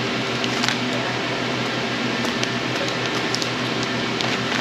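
Steady fan hum with a low droning tone, fairly loud, with a few light clicks and rustles.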